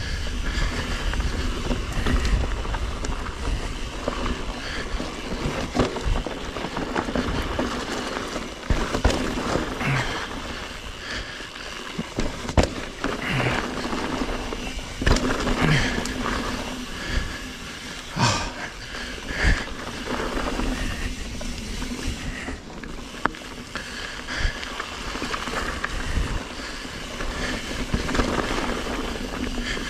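Mountain bike riding down a loose dirt trail: tyres rolling over dirt and stones, with irregular knocks and rattles from the bike over bumps, and wind noise on the microphone.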